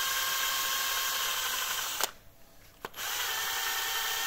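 Cordless drill running steadily as a small bit bores into the solid 3D-printed plastic body of a charging adapter. The motor stops about two seconds in, a click follows, and it starts again about a second later.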